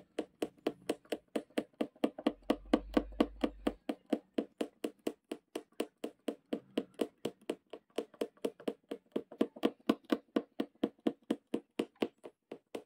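Punch needle (oriental needle embroidery tool) stabbing in and out of fabric stretched tight in a wooden embroidery hoop, making a rapid, even series of soft taps at about four to five a second.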